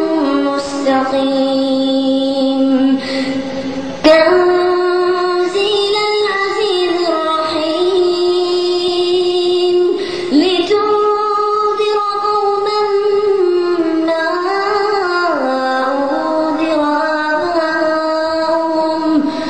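A young boy reciting the Quran in a high, melodic chanting voice, drawing out long held notes that rise and fall in pitch, with short pauses for breath about four and ten seconds in.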